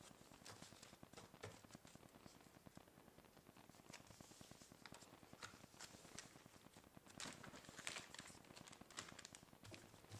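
Near silence with faint, scattered clicks and rustles of small packets and packaging being handled on a table.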